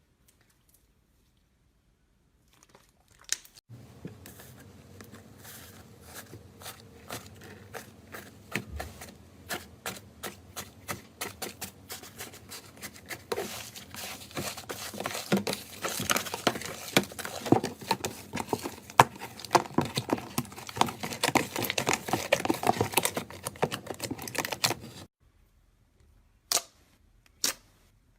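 Slime being squeezed and poked: a dense run of small crackling clicks and pops that grows busier, then stops abruptly. A few single sharp clicks follow near the end.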